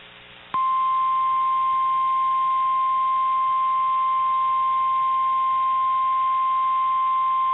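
NOAA Weather Radio 1050 Hz warning alarm tone: one steady, high-pitched tone that starts about half a second in over faint radio hiss and holds without change. It is the attention signal that comes before a new severe thunderstorm warning message.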